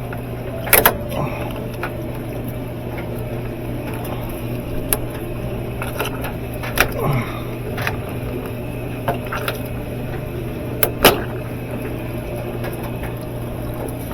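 Scattered sharp clicks and knocks, about seven of them, from a hose clamp and drain hose being handled and fitted, over a steady low hum.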